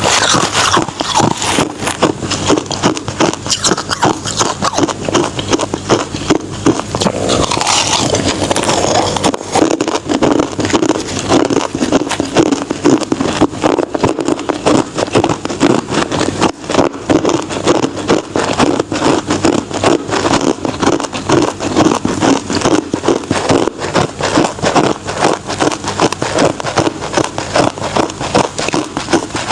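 Close-miked crunching and chewing of ice: a dense, continuous run of crisp crackles.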